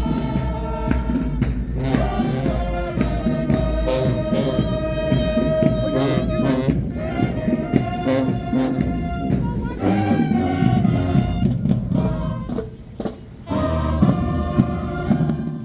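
High school marching band playing, with brass holding sustained notes over drums. The sound dips briefly near the end, then the band plays on.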